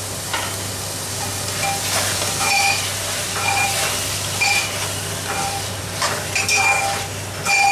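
Boiled chickpeas being stirred into a sizzling masala in an aluminium pot with a steel spoon. A steady sizzle runs under repeated short scrapes and a few knocks of the spoon against the pot.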